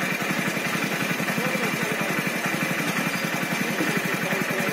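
An engine idling steadily with an even, rapid putter.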